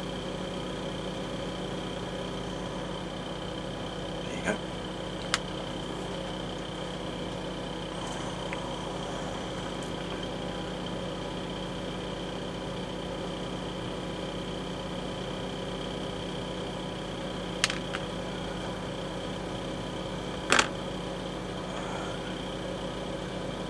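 Steady mechanical hum, like a fan running, with a few short sharp clicks and taps of small tools or kit parts set down on the workbench: two about four and five seconds in, and two more near the end.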